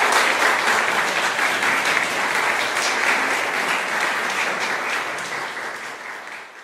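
Audience applauding, steady clapping that thins out and fades near the end.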